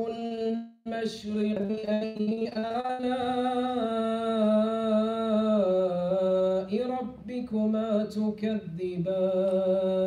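A man's solo Quran recitation in melodic chanting style, drawing out long wavering notes with brief pauses for breath.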